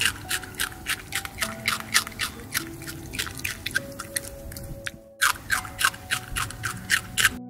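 Capybaras chewing fresh green grass stalks: a quick, crisp crunching several times a second, breaking off briefly about five seconds in.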